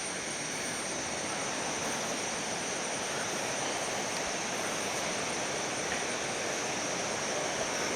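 Steady rushing of water from a stream and waterfall, with a faint steady high whine above it.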